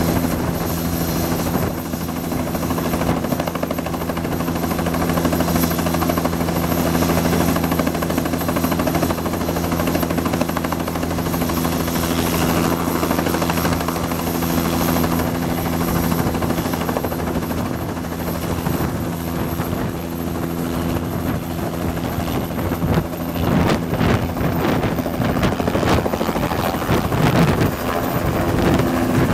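Bell 206L LongRanger helicopter running on the pad with its turboshaft whine and a steady rotor hum. Near the end the turbine whine rises in pitch and the rotor sound grows louder and choppier as it lifts off into a low hover.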